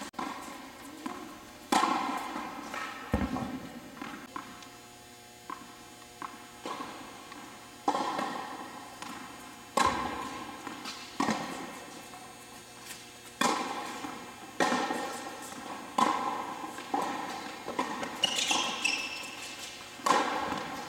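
Tennis balls being struck by rackets and bouncing on an indoor court during a rally, a sharp hit about every second or so, each echoing briefly in the hall. A brief high squeak comes near the end.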